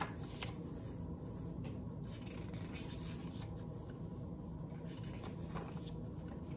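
Glossy photo prints being flipped and slid against each other by hand, a soft rubbing with a few faint paper clicks over a steady low hum.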